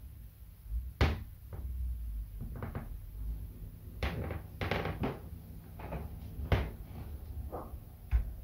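A string of sharp household knocks and clacks, as of a cupboard door and things being handled and set down. The loudest comes about a second in, a cluster follows around four to five seconds, and another sharp knock comes near the end.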